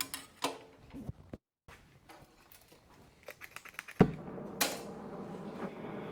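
Scattered metallic clicks and clanks of parts and tools being handled. About four seconds in comes a sharp knock, followed by a steady hiss that grows louder.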